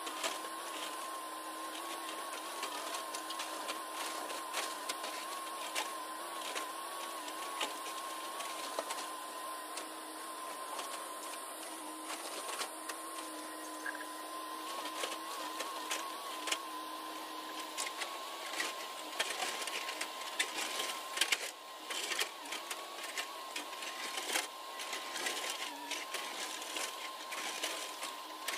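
JCB tracked excavator working, its engine and hydraulics giving a steady whine. In the last third, crackling and rattling come in as the bucket scrapes the slope face and soil and stones tumble down, loudest about two-thirds of the way in.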